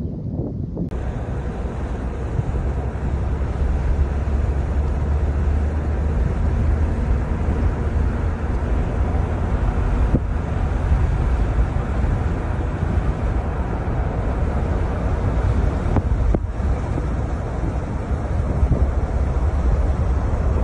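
Wind buffeting a phone's microphone: a steady rushing noise with a heavy low rumble.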